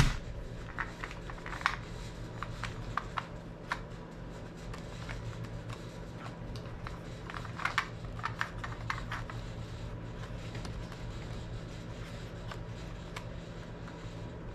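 Scattered small clicks and taps of a bike handlebar phone mount being handled as its wing nut is put on and tightened, with a quick cluster of clicks about eight seconds in. A steady low hum runs underneath.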